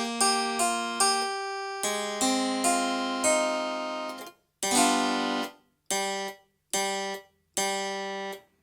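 A Casio AiX-engine keyboard playing an acoustic piano tone: a quick run of notes and a held chord, then four short chords with gaps between them, each released sharply.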